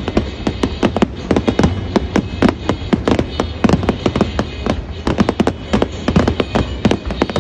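Fireworks finale: firework shells bursting in a rapid, unbroken barrage, several bangs a second.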